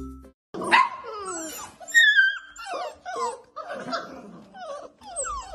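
Several golden retriever puppies yipping, whining and howling together: many short overlapping high calls, most sliding down in pitch, with one longer held call about two seconds in.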